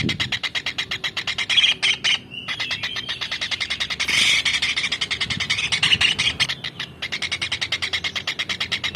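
Kingfisher calling vigorously in a fast, unbroken run of short, sharp high chirps, broken by two brief pauses.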